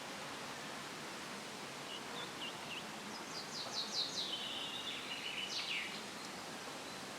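Leaves rustling steadily in a light breeze, with a songbird giving a few soft chirps about two seconds in, then one short song phrase of quick falling notes, a trill and a final downward sweep.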